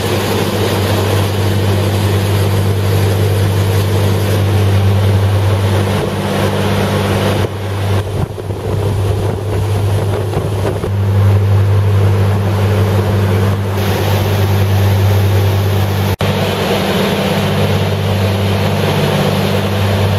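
Outboard motor driving a fast motorboat: a loud, steady engine drone over rushing water from the wake and wind on the microphone. The drone wavers for a few seconds about a third of the way in.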